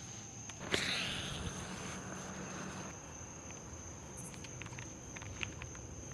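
Insects, crickets or similar, keep up a steady high-pitched chirring. Under a second in there is a sharp click, followed by a hiss that fades over about two seconds, and a few faint ticks come later.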